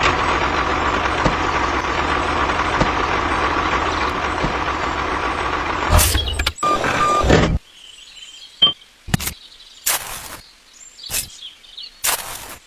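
A steady, machine-like noise for about six seconds that cuts off suddenly, followed by a few scattered short knocks or clicks.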